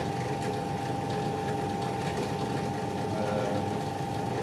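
1930 EXE metal lathe running under its electric motor, switched on to show it operating. It makes a steady hum with a constant high whine.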